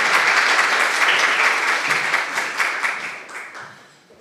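Audience of several dozen people applauding, the clapping dying away over the last second or so.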